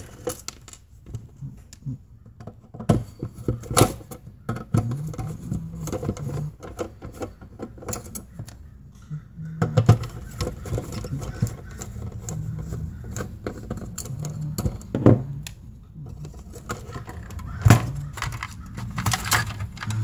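Screwdriver and hands working on the metal chassis of a dbx 1BX signal processor: irregular clicks, taps and knocks as screws are undone and the cover and panels are handled.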